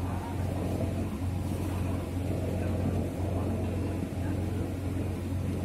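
A boat's engine running at steady speed: a low, even drone with a steady rushing hiss over it.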